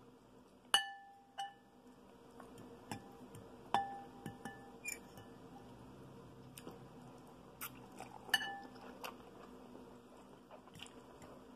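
Metal fork clinking against a clear glass bowl of ramen noodles while noodles are lifted out: about ten light taps at uneven intervals, the louder ones leaving the glass ringing briefly.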